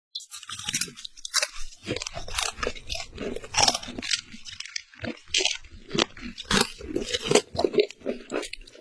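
Close-up crunching and chewing of crisp snack chips, a run of irregular sharp crunches bite after bite.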